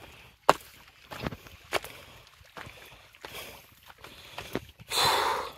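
Scattered footsteps, knocks and scuffs on rock, with a short, loud rush of noise near the end.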